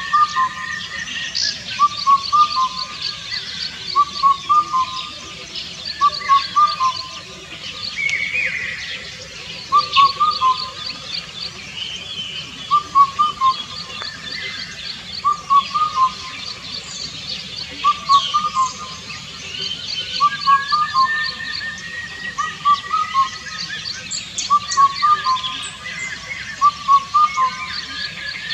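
Indian cuckoo calling its four-note whistled phrase, repeated every two to three seconds, with a short pause about a third of the way in. Other birds chirp and trill in the background.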